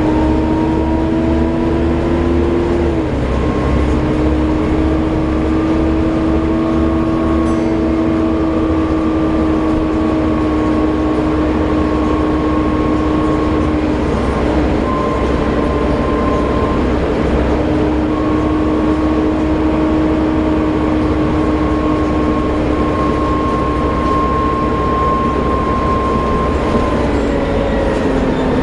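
Volvo B7TL double-decker bus driving, with a loud, steady vacuum-cleaner-like whine over the engine rumble, the 'hoover' sound buses of this type are known for. The whine's pitch shifts a few times, dropping near the end as the bus changes speed.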